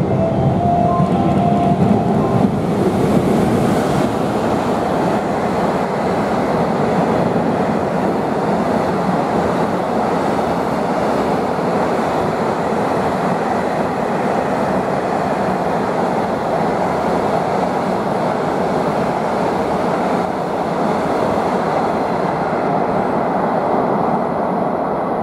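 EF510 electric locomotive hauling a long container freight train through a station: the steady rumble and rattle of the wagons' wheels on the rails. The sound fades near the end as the last wagons pass.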